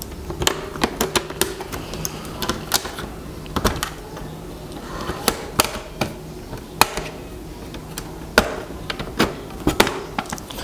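Plastic snap clips of an HP Notebook 15 laptop's case panel clicking and popping as the panel is pried loose by hand: a string of sharp, irregular clicks.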